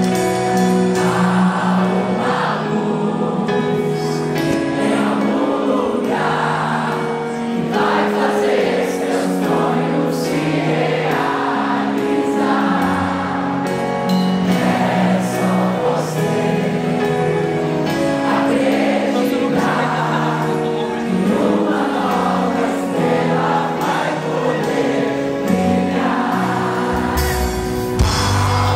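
Live pop music: several women's voices singing together in sustained harmony over a full band, in steady recurring phrases.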